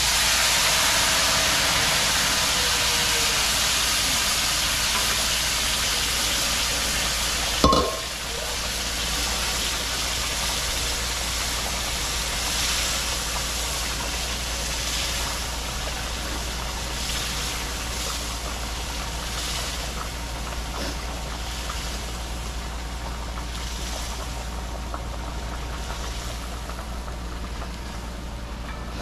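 Food dropped into a pot of hot oil and caramelizing brown sugar, sizzling loudly. The sizzle starts suddenly and slowly dies down to a crackling fry, with a single sharp knock about eight seconds in.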